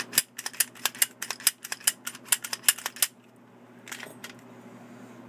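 Quick run of sharp metallic clicks and clacks from a freshly reassembled and oiled Glock 27 pistol being worked by hand, about twenty in three seconds, then two fainter clicks about a second later.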